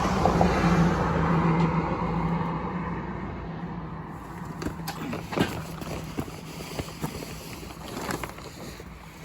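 A steady mechanical hum with a rushing noise that fades away over the first three seconds. Then come scattered light clicks and knocks, typical of hand tools and bolts being handled during a transmission removal.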